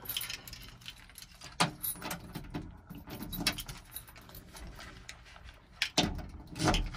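A bunch of keys on a key ring jangling and clicking as the key is put into the ignition switch, with a sharp click about one and a half seconds in and a louder run of clicks and jingling near the end.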